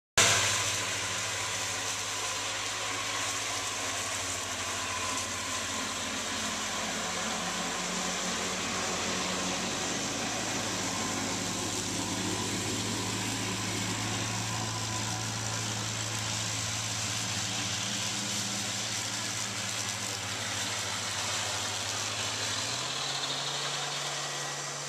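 1955 Farmall Cub's four-cylinder flathead engine running steadily at low speed. Near the end its speed picks up a little.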